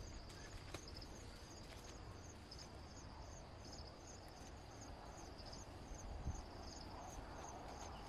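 Insect chirping in a steady rhythm, about three short high chirps a second, over a faint low rumble.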